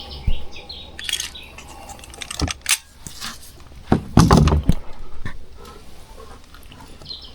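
Scattered light clinks, clicks and knocks of fishing gear being handled in a boat, with a louder cluster of knocks about four seconds in.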